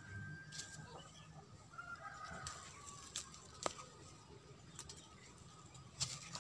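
Green chilies snapped off the plant by hand amid rustling leaves: a few sharp snaps, the loudest a little past halfway and another near the end. Faint bird calls in the background.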